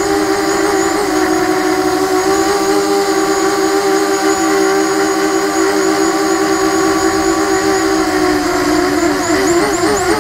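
QAV250 quadcopter's brushless motors and propellers whining in flight, a steady multi-toned hum whose pitch starts wavering rapidly up and down near the end. The wavering is the motors hunting as the quad wobbles in Angle mode, which the owner blames on Cleanflight 1.11.0 firmware and which grows worse with throttle.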